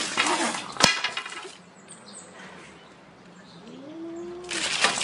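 A cat hissing in noisy bursts, with a wooden broom falling onto concrete in one sharp clack about a second in. A short low cry comes near the end, followed by another burst of hissing.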